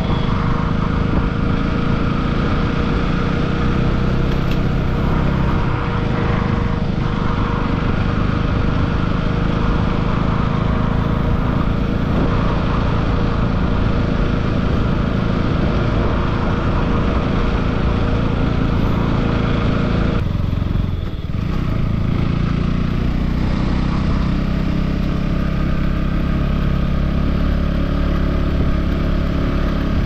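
A vehicle engine running steadily with road and wind noise, heard while travelling. A faint steady whine stops about two-thirds of the way through, and the sound drops briefly just after.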